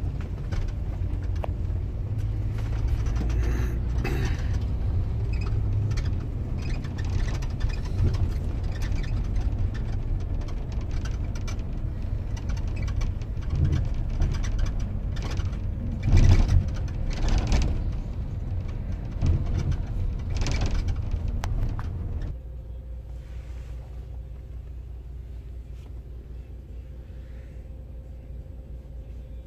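Engine and road rumble inside a moving bus, with rattles and knocks and a few louder swells. About three-quarters of the way through it drops suddenly to a much quieter steady hum.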